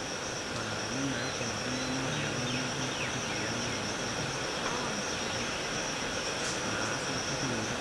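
Steady high-pitched drone of insects in the undergrowth, with quiet talking underneath.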